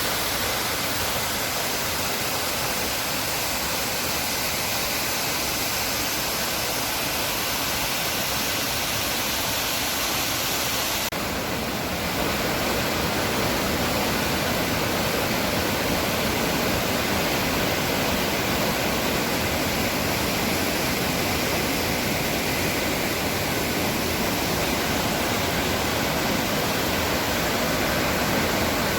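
Steady rush of the Upper Düden Waterfall's water falling, a dense even hiss that grows fuller and deeper about eleven seconds in.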